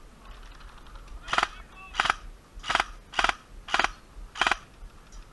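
G&G ARP 9 airsoft electric gun fired in six short trigger pulls about half a second apart, each a quick rattle of the gearbox cycling. The gun has feeding problems.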